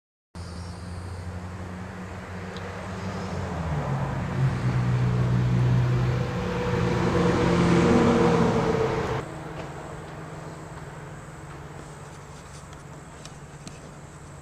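A motor running with a steady hum, growing louder toward the middle, then dropping suddenly about nine seconds in to a quieter steady hum.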